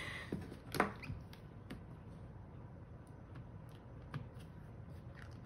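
A few small clicks and taps from hands handling paper and a plastic stamp-positioning tool, with one sharper click about a second in, over a low room hum.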